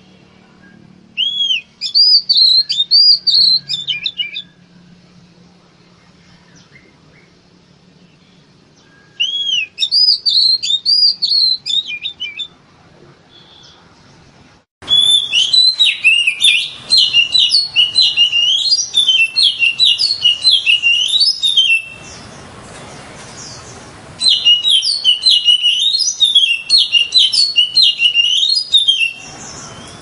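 Oriental magpie-robin singing: short bouts of quick rising and falling notes with pauses between, then, after an abrupt change about halfway, louder and denser song in two long stretches.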